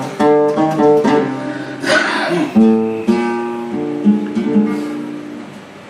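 Flamenco guitar playing alone between the sung verses of a serrana: a run of plucked notes with a strummed chord about two seconds in.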